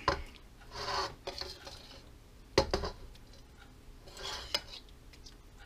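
A metal spoon scraping in a skillet of sauce and clinking against the pan and a plate as chicken pieces are lifted out, with a few sharp clinks, the loudest about two and a half seconds in.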